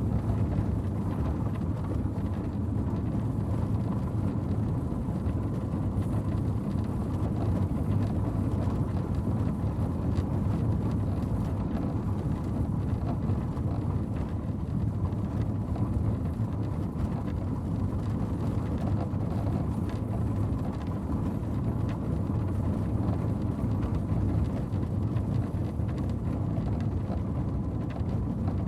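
Four-horse stagecoach rolling along, giving a steady low rumble with a dense, continuous rattle from the wheels and carriage.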